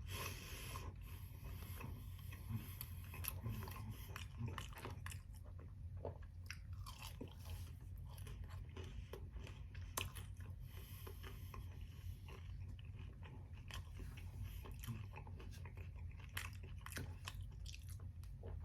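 Close-miked chewing and biting of fast food: irregular wet crunches and mouth clicks, over a steady low hum.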